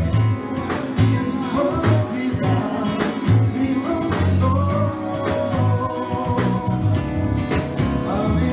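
Song with a steady drum beat, guitar and singing, a long note held in the middle.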